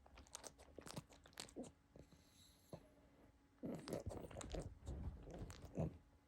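A pug chewing something crunchy: a few scattered crunches and mouth clicks, then a denser, louder bout of crunching in the second half.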